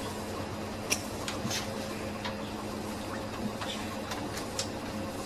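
Steady low electrical hum and hiss of an old camcorder recording in a small room, with scattered faint clicks and one sharper click about a second in.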